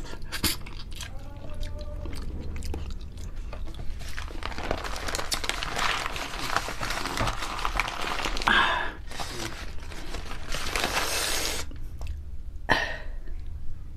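Close-up chewing and wet lip smacking as food is eaten off the fingers. Then, from about four seconds in, plastic and paper food wrapping crinkles and rustles in two long stretches as it is handled, with a sharp click near the end.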